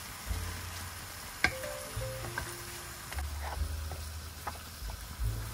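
Monkfish chunks and cherry tomatoes sizzling in oil in a non-stick frying pan while a spatula stirs them, with sharp taps of the spatula on the pan, the loudest about one and a half seconds in. Soft background music plays underneath.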